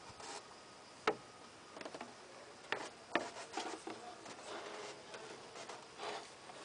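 Toyota Land Cruiser 90's plastic engine fan being worked into place by hand, its blades knocking and rubbing against parts in the engine bay, with a few sharp knocks about a second in and around three seconds.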